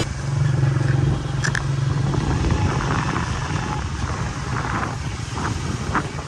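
Loud, steady rush of river water pouring through barrage gates, with a low engine-like hum in the first two seconds.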